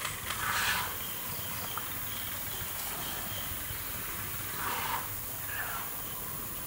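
Steady high hiss of insects with faint thin whining tones, and a few brief soft noises about half a second in and again around five seconds in.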